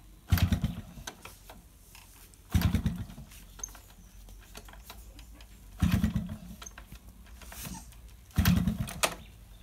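Yamaha RX100 two-stroke single-cylinder engine being kick-started four times, roughly every two to three seconds. Each kick spins it into a short burst of putts that dies out without catching. It is a hard cold start after a night in the rain, with a spark plug fouled black.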